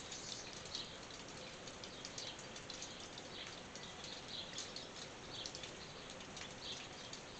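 Light rain on a tin roof: a steady patter with scattered drops tapping irregularly.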